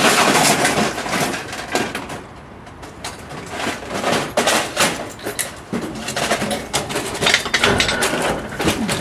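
Irregular knocks and crunches from hard plastic electronics being smashed. The heaviest crash comes at the start, it is quieter for a second or so, then a run of sharp hits follows.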